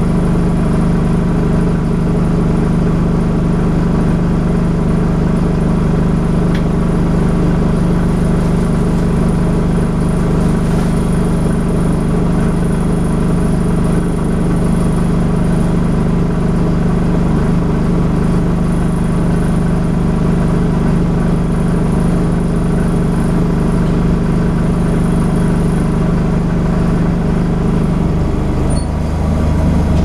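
Dennis Dart SLF bus diesel engine idling steadily while the bus stands still, heard from inside the saloon. Near the end the engine note changes and begins to rise as the bus pulls away.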